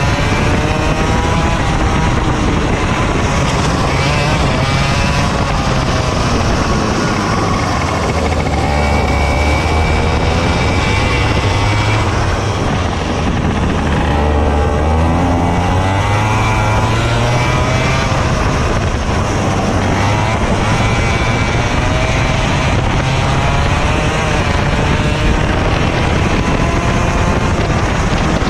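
Racing kart engine heard onboard at close range, revving up through the straights and dropping in pitch as the kart slows for corners, lowest for a few seconds at a tight hairpin about halfway through before climbing again.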